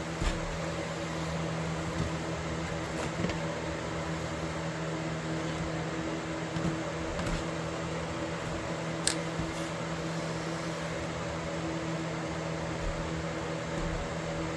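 A small electric motor running steadily with a constant hum, with a few light clicks or taps, about a quarter second, three seconds and nine seconds in.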